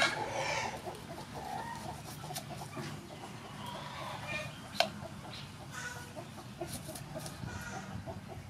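Chickens clucking in the background while a kitchen knife slices through a red onion, with a few sharp taps of the blade on the wooden chopping board, the loudest about five seconds in.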